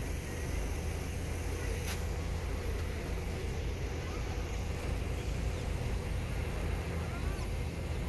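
Steady low engine rumble, with a single sharp click about two seconds in and a few faint bird chirps.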